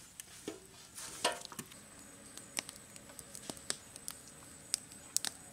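Wood fire crackling under a large cooking pot: scattered sharp pops and clicks at irregular times, with one louder, brief ringing knock just over a second in.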